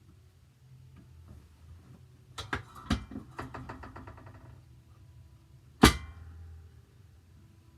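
Chiropractic drop table being set for the patient's weight: a few clicks, then a quick run of evenly spaced ratcheting clicks, and one sharp knock about six seconds in.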